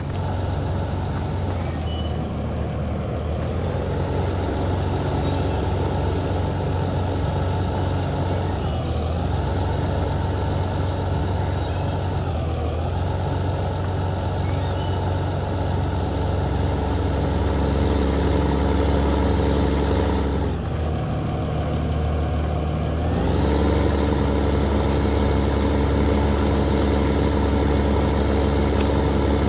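John Deere 8970 tractor's six-cylinder diesel engine running steadily under ploughing load. Its pitch sags briefly a few times, dips for a couple of seconds past the middle, then climbs back to a higher, steady speed.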